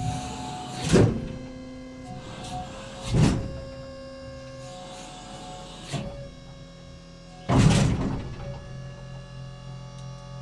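Tank turret traversing: a steady motor whine and hum, broken by four heavy mechanical clunks. The last clunk, near the end, is the loudest.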